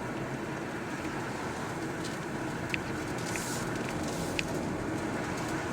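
Steady road and engine noise inside a moving car's cabin, with a few faint ticks.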